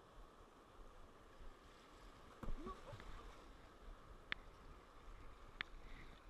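River rapids rushing past a kayak, heard as a steady, faint wash of water. A brief louder sound comes about two and a half seconds in, followed by two sharp clicks over a second apart.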